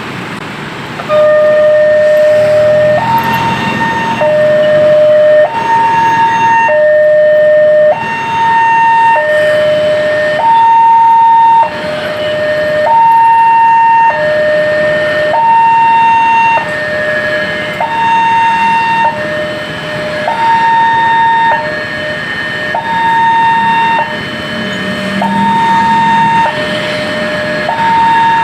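Railway level-crossing loudspeaker siren sounding a two-tone hi-lo warning for an approaching train. It starts about a second in and switches steadily between a lower and a higher tone about every second and a quarter.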